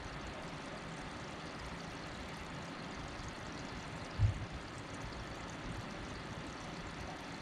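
Steady, even background hiss, with a single low thump a little over four seconds in.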